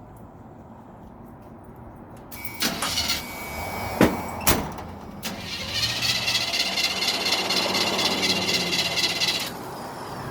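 Starter cranking the engine of a 1979 GMC truck, which turns over in a rhythmic pulse without catching: a short try a couple of seconds in, two sharp knocks, then about four seconds of steady cranking that stops. The truck won't start, and a carburetor problem is suspected.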